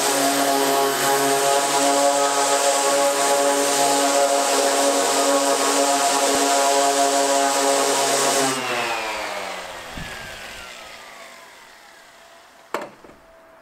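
Electric orbital sander running steadily on a plywood kayak hull, then switched off about two-thirds of the way in and winding down with a falling whine. A single sharp knock comes near the end.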